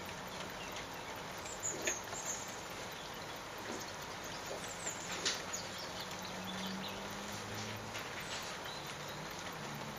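Steady rain pattering, with scattered sharper drips. A few faint, very high squeaks come about two seconds in and again around four to five seconds.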